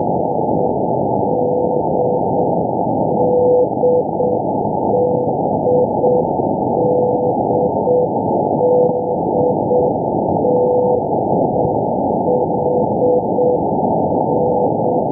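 Shortwave Morse code beacon sending the single letter "D" (dah-dit-dit) over and over, a keyed tone of about 500 Hz repeating every couple of seconds. It is heard through a receiver in CW mode, under a loud, steady static hiss.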